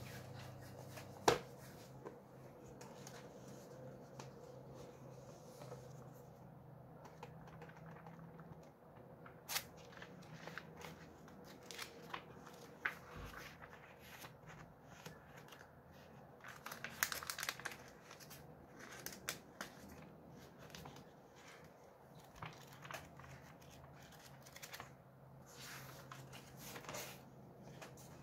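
Thin pages of a thick hardcover Believer's Bible Commentary being turned and leafed through by hand: scattered paper rustles and soft flaps, busiest a little past the middle. A faint steady low hum lies underneath.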